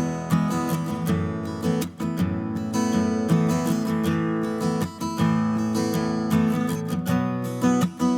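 Background music: an acoustic guitar strumming a steady, upbeat tune.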